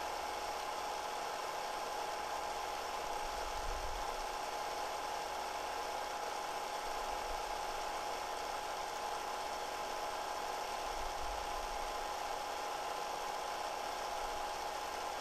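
Steady whir of a running 8 mm film projector, with an even hiss and a constant high hum.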